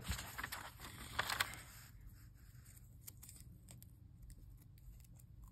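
Light handling noises of rolls of washi tape and a paper notebook page: a few short scrapes and rustles in the first two seconds, then only faint ticks.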